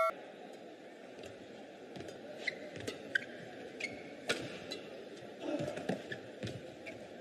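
Badminton rally: sharp racket-on-shuttlecock hits about every second, with brief shoe squeaks on the court floor, over the low noise of a sports hall.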